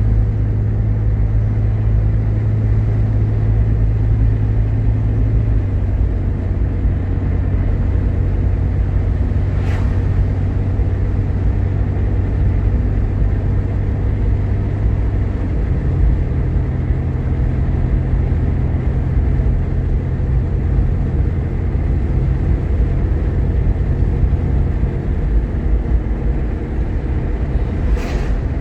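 Jeep Grand Cherokee's 3.7-litre V6 running steadily under way, with road noise; the engine's hum changes pitch about five seconds in and again about fifteen seconds in. A short click sounds about ten seconds in and again near the end.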